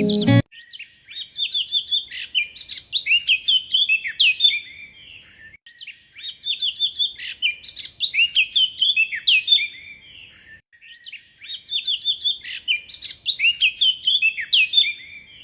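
A songbird singing three long, rapid twittering song phrases of quick, sliding high notes, with short pauses between them.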